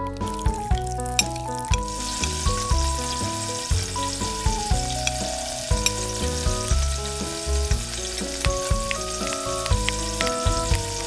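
Oil sizzling in a tiny steel wok as vegetable pieces fry and are stirred with a small spoon, the sizzle setting in about two seconds in. Background music with a steady beat plays throughout.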